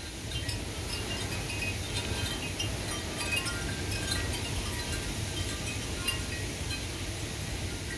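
Wind chimes ringing in quick, irregular clusters of high notes, struck over and over by gusting storm wind, over a steady low rush of wind.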